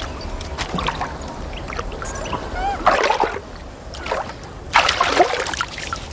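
River water splashing as a man wades in and scoops it over his face while bathing, with two louder splashes about three and five seconds in.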